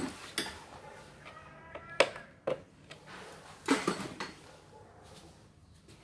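Sharp clicks and knocks of hard plastic and metal parts being handled on a workbench: a few single knocks, the loudest about two seconds in, then a short cluster near four seconds.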